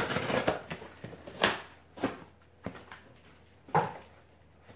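Bubble wrap and a cardboard box being handled: several short rustles and soft knocks with quiet gaps between, the loudest about a second and a half in and again near the end.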